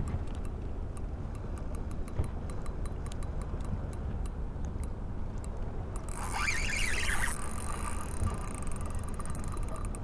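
Spinning reel being wound in against wind rumble on the microphone, with faint scattered ticks. About six seconds in comes a brief, high squealing scrape that trails off into a thin, steady whine.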